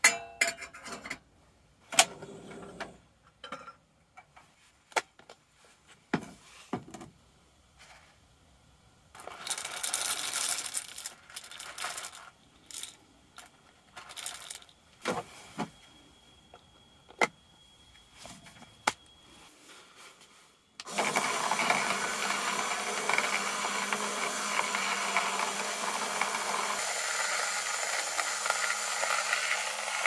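Coffee beans clicking and rattling as they are loaded into a small electric coffee grinder. About two thirds of the way in, the grinder starts and runs steadily, grinding the beans.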